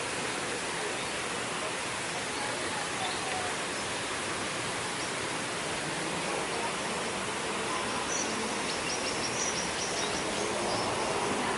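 Steady rushing of falling water from a small rainforest-exhibit waterfall, with a short run of faint, high bird chirps about eight to ten seconds in.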